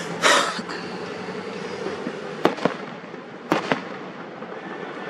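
Fireworks going off: a loud burst about a quarter second in that trails off, then two pairs of sharp cracks at roughly two and a half and three and a half seconds in, over a steady low hum.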